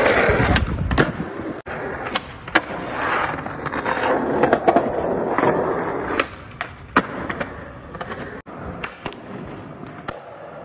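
Skateboard wheels rolling on concrete, broken by sharp clacks of boards popping and landing, over several short clips that cut abruptly from one to the next.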